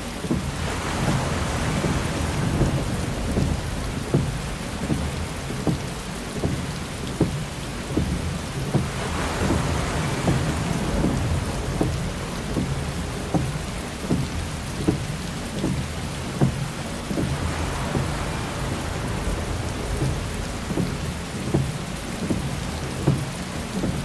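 Heavy rain drumming on a car's windshield and roof, with many sharp drop impacts over a steady low rumble. A windshield wiper sweeps across about every eight seconds, three times.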